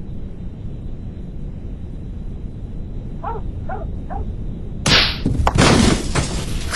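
A steady low rumble, with three short falling chirps about three seconds in, then a sudden loud burst of crashing, impact-like noise from about five seconds on.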